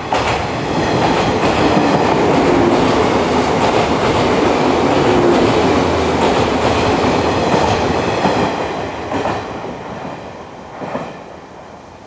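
JR 183 series electric multiple unit passing through a station at speed without stopping: a loud, steady rush of wheel and rail noise with clacks of the wheels over rail joints. It fades after about nine seconds as the last car goes by, with a few last clacks near the end.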